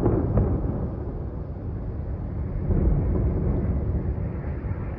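Low, steady rumble of distant missile explosions, with no single sharp blast standing out.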